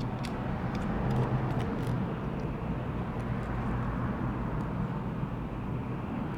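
Steady low background rumble, with a few faint light clicks from small phone parts and tools being handled.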